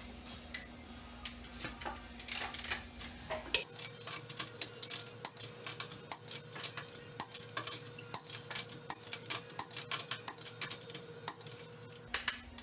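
Metal hand tools and brake parts clinking and clattering against each other as a car's rear disc brake is put back together. The clinks are irregular and sharp, and they come more often from about four seconds in.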